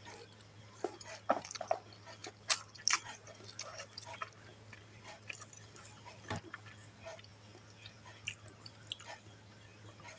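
Close-miked chewing of fried instant noodles (mie goreng): irregular mouth clicks and smacks, over a faint steady low hum.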